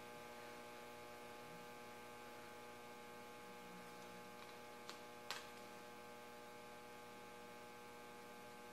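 Near silence with a steady electrical mains hum, and two faint light clicks about five seconds in.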